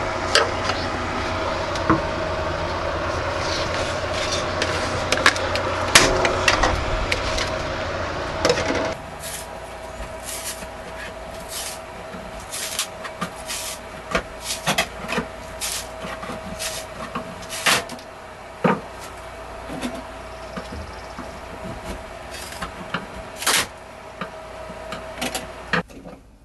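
Scattered clicks and knocks of things being handled at a kitchen counter, over a steady hum. A louder rushing background fills roughly the first nine seconds, then drops away and leaves the sharper knocks more distinct.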